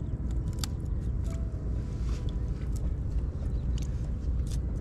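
Small splashes, trickles and drips as hands grope about in shallow water among sticks, over a steady low rumble.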